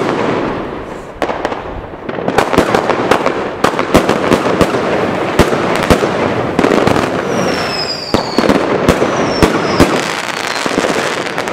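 Consumer firework cake firing a rapid series of shots: sharp bangs and pops over a dense, continuous crackle, starting with one loud report. A few thin falling whistles join in the second half.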